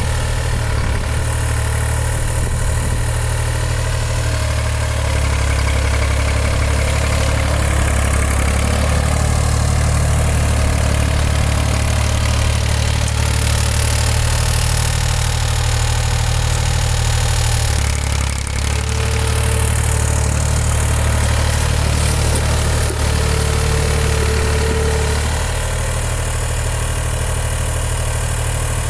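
Massey Ferguson 235 tractor's three-cylinder diesel engine running steadily with its air filter removed, giving the strange noise of an engine drawing air through an open intake.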